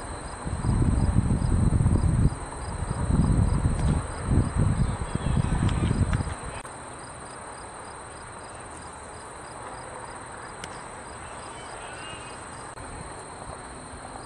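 A steady, high-pitched insect chorus with a regular chirping pulse. For the first six seconds or so a louder, gusty low rumble of wind on the microphone sits under it, then cuts off.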